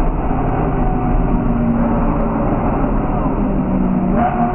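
Straight-piped Lamborghini engine and exhaust running steadily while cruising through a tunnel, heard from inside the cabin. The engine note wavers in pitch and gets louder and brighter about four seconds in.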